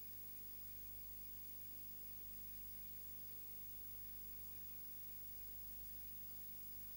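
Faint steady electrical hum with a layer of hiss, the background noise of the recording, and no other sound.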